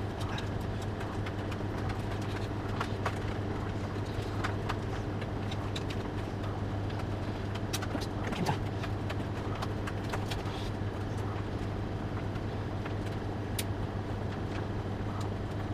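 Steady low hum with scattered light clicks and rattles of small parts being handled, as cable ties and cutters are picked up and used inside a desktop PC case.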